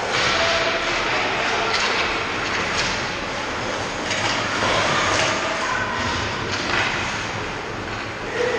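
Youth ice hockey play around the goal: a steady rushing hiss of skates on the ice, with several sharp clacks and scrapes of sticks, puck and skates as players crowd the crease about halfway through.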